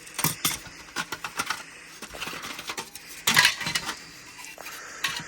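Plastic scale-model kit parts clicking and rattling as they are handled and moved about, with a louder clatter a little over three seconds in.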